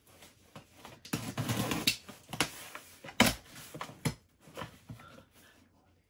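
Box cutter scraping along the packing tape of a cardboard box, a longer scrape about a second in. Several sharp clicks and taps follow, the loudest about three seconds in.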